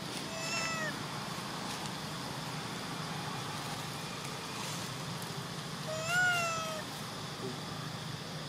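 Infant long-tailed macaque crying twice: a short, thin cry within the first second, then a louder one about six seconds in that rises and then falls in pitch. The baby is crying for milk while being weaned.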